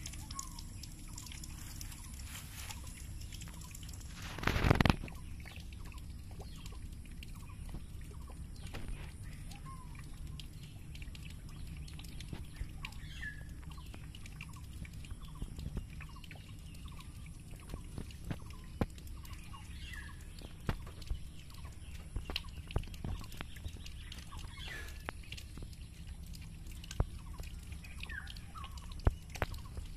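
Outdoor ambience: a steady low rumble with occasional short bird chirps scattered through. A loud brief noise about four to five seconds in, and faint scattered clicks.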